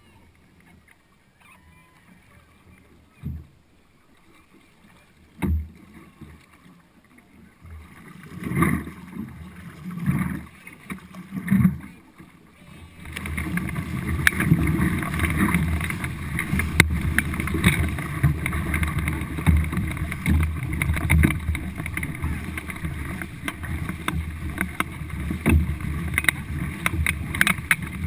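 Paddles of a four-person racing canoe working the water. It is fairly quiet at first, with a couple of sharp knocks. Separate paddle strokes surge in from about a third of the way through, and from about halfway there is continuous loud splashing of hard, fast strokes and water rushing past the hull as the canoe speeds up.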